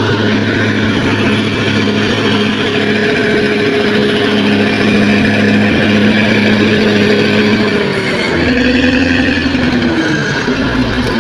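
Bulldozer's diesel engine running steadily under load, its note shifting and wavering from about eight seconds in.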